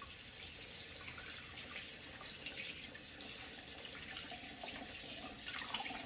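Kitchen faucet running steadily, its stream splashing over a fish throat held under it and into a bowl of water in a stainless steel sink.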